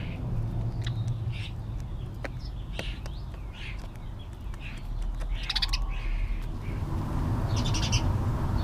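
Birds feeding and calling: many short, sharp calls, with two louder bursts about halfway through and near the end, over a steady low rumble.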